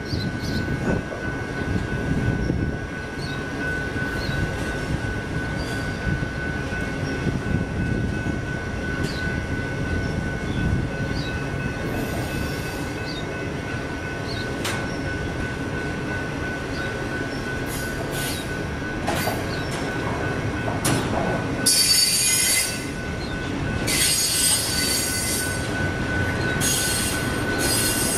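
Double-stack intermodal container train rolling past: a steady rumble of the well cars with scattered wheel clicks, and a thin, steady high squeal from the wheels. In the last few seconds, three louder bursts of high screeching.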